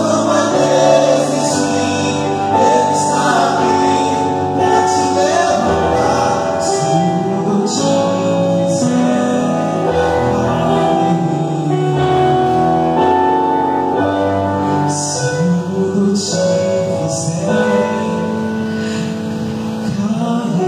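Male vocal group singing a gospel song in harmony into microphones through a PA, over a sustained instrumental backing.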